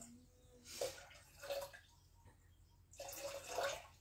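Water poured from a plastic jug into a Thermomix's steel mixing bowl, heard as a few short, faint splashes, the longest near the end.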